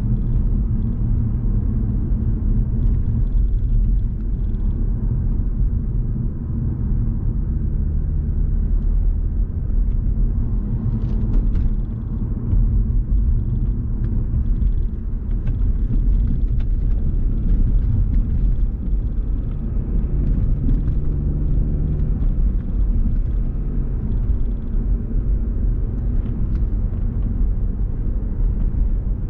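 A car driving at road speed: a steady low rumble of road and engine noise, with the engine's pitch shifting slightly now and then.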